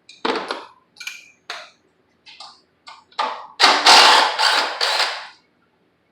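Hand tools and metal parts clanking and clattering in a string of sharp knocks, with a louder, busier cluster from about three and a half to five seconds in.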